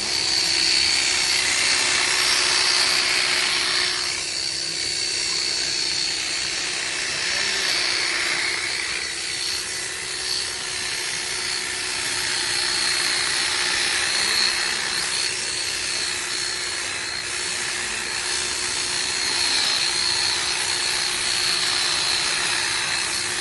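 Handheld electric sheep-shearing clipper running steadily as its blades cut through a sheep's fleece: a constant motor hum under a loud hiss.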